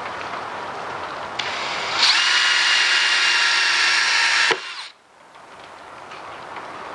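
DeWalt cordless drill boring into a wooden board: the motor runs at a steady high speed for about two and a half seconds, starting about two seconds in and stopping abruptly.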